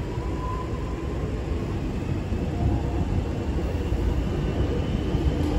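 X'Trapolis electric suburban train at the platform, its equipment giving a steady low rumble. Near the end a steady hum comes in as the train begins to pull away.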